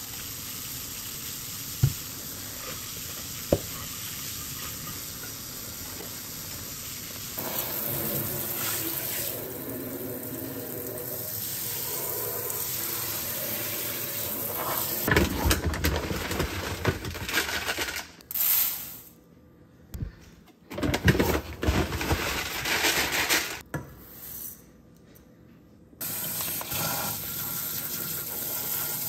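Kitchen faucet running into a stainless steel sink while dishes are washed and rinsed, with two sharp clinks of dishware near the start. The running water breaks off several times in the second half, then runs steadily again.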